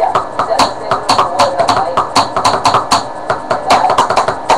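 Improvised drumming on household objects: quick taps and knocks on plastic jars and containers, several hits a second in a loose beat.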